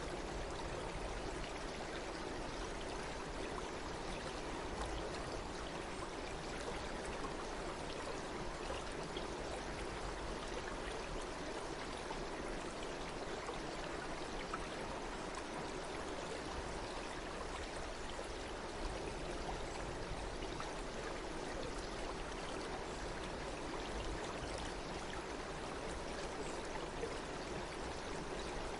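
Water flowing steadily in a stream, an even, unbroken rushing sound.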